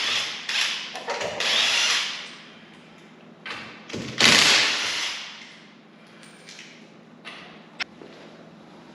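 Power tool spinning a 19 mm socket in short bursts to loosen wheel lug nuts: several runs in the first two seconds and a longer, loudest one at about four seconds, then quieter with a single sharp click near the end.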